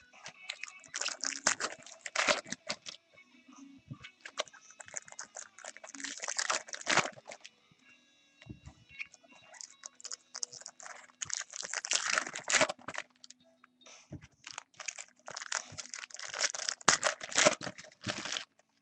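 Baseball card pack wrappers crinkling and tearing as packs are ripped open and handled, in several bursts of crackling a second or two long.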